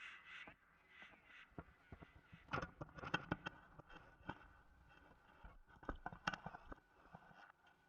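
Quiet harsh-noise output from a Chase Bliss Generation Loss MKII fed into a Fairfield Circuitry Hors d'Oeuvres feedback loop: sparse crackles and clicks over a faint steady tone. Clusters of louder clicks come about two and a half seconds in and again around six seconds.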